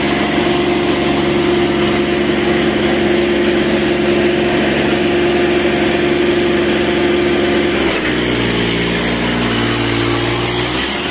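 Diesel farm tractor engine running loudly and steadily; about eight seconds in its note changes, shifting to a deeper pitch for the last few seconds.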